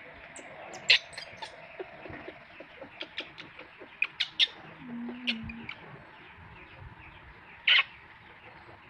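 Baby monkey giving short, sharp, high-pitched squeaks in scattered bursts, the loudest about a second in and again near the end.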